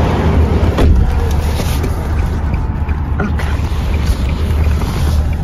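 Steady low rumble of a car heard from inside the cabin, with the phone's microphone rubbing and knocking against skin and clothing, the clearest knock a little under a second in.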